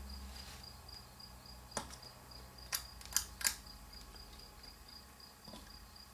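A cricket chirping steadily in evenly spaced, high-pitched pulses, with four sharp clicks about two to three and a half seconds in.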